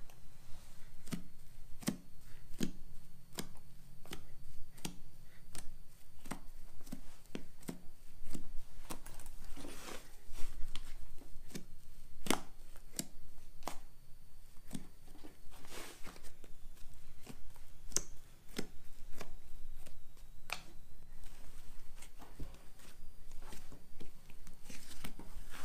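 Butter slime made with Daiso soft clay being poked, kneaded and stretched by hand, giving many short sticky clicks and pops at an uneven pace with soft squishing between them.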